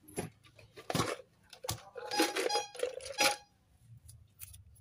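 Small metal parts clinking and rattling as they are handled. There are several sharp clicks, then a burst of ringing clinks in the middle, lasting about a second.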